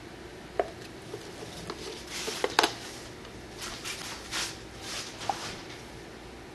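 Handling noises as painting tools and supplies are set down and picked up: a few light clicks and knocks, the loudest a quick pair about two and a half seconds in, with short rustling swishes in between.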